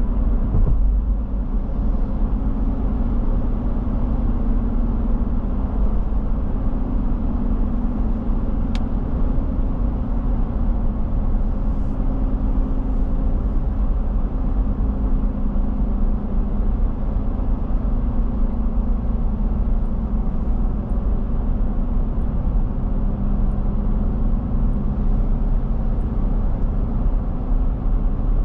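Car driving on a road: steady engine and tyre rumble, the engine tone drifting slightly up and down, with a single brief click about nine seconds in.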